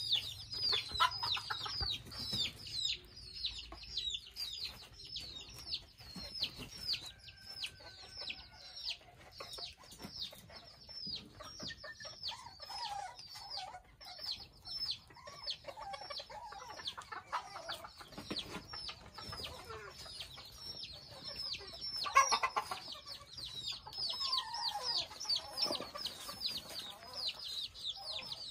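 Small mini Thai bantam chickens clucking and calling over a near-continuous run of short, high, falling peeps, several a second. Lower calls come and go, and one loud call rings out about three-quarters of the way through.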